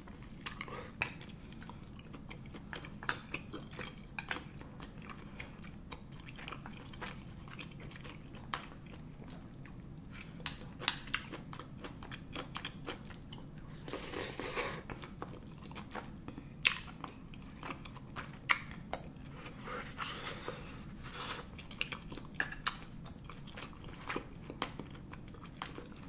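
Eating sounds of someone chewing tteokbokki, the chewy Korean rice cakes in spicy sauce. Short clicks of chopsticks against a porcelain bowl come through now and then, and there is a longer, louder mouthful a little past halfway.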